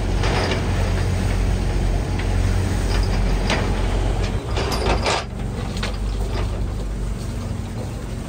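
Fishing boat's engine running with a steady low drone under a constant rush of wind and sea. A few short noises stand out: about half a second in, at about three and a half seconds, and around five seconds.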